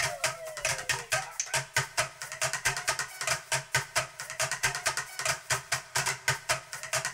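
Background music with a steady, fast percussive beat and pulsing bass. A falling tone fades out about a second in.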